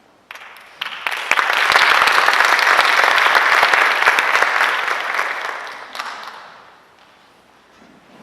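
Audience applauding: the clapping starts just after the opening, builds within a second, holds for a few seconds, then fades out about seven seconds in.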